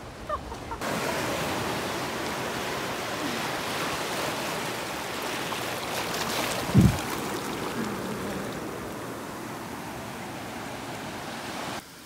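Shallow surf washing in over sand and rocks close to the microphone, a steady rushing wash of water that begins abruptly just under a second in. One low thump about seven seconds in.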